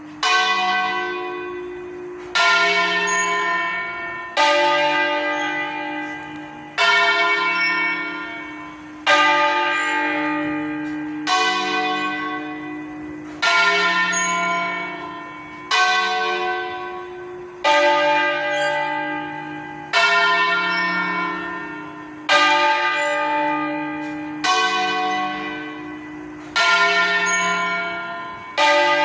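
Church bells in a campanile rung 'di stanga', swinging in full circle: a loud bell stroke about every two seconds, each ringing on and fading before the next.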